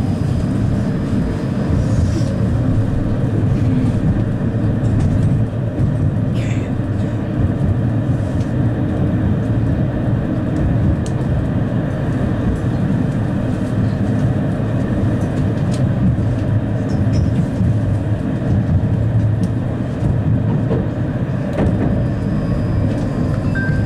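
71-931M Vityaz-Moskva tram running along the track between stops, heard inside the passenger cabin: a steady, loud rumble of wheels and running gear with a few faint clicks.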